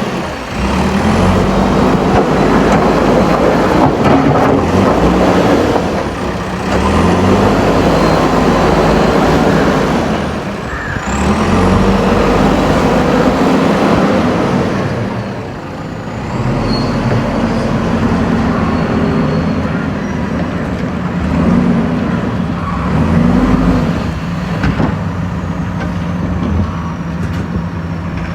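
JCB backhoe loader's diesel engine working under load, its pitch rising and falling again and again as it revs up and eases off, with faint high whines that glide up and down.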